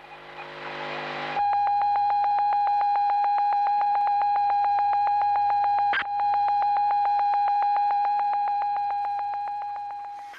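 A hiss that swells for about a second and a half, then a steady, high electronic beep tone with a fast buzzing pulse. The tone breaks with a click about six seconds in and fades away near the end.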